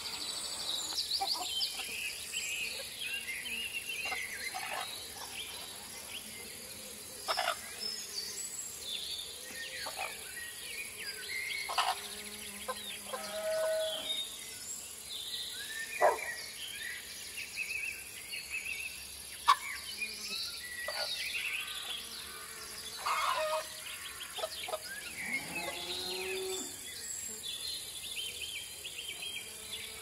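Rural morning ambience: a steady high insect drone with birds chirping and calling throughout. Two short sharp calls a little past the middle are the loudest, and a low drawn-out animal call sounds near the end.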